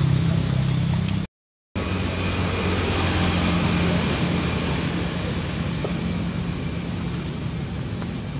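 Steady outdoor hiss with a low, even engine-like hum under it, broken by a half-second dropout to silence about a second in.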